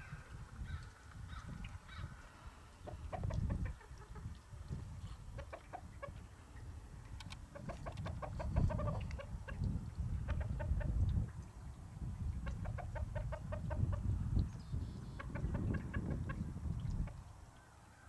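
Chickens clucking in runs of short, quick clucks that come and go, over a low rumble of wind on the microphone.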